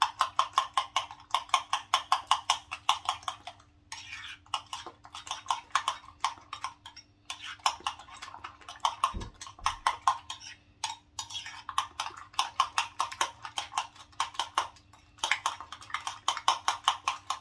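Metal fork whisking eggs in a ceramic bowl: rapid clinking strokes against the bowl, several a second, in runs broken by brief pauses.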